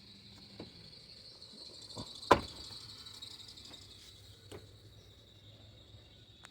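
Small plastic clicks and knocks of a turn-signal bulb socket being twisted and seated in a car's headlight housing, with one sharp, loud click about two seconds in. Crickets chirp steadily in the background.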